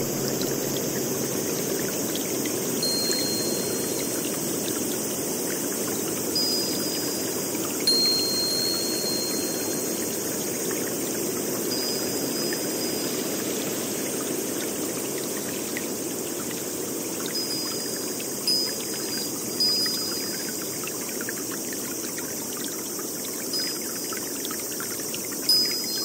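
Steady rush of running water, with short high chirping tones now and then and a few brief louder swells.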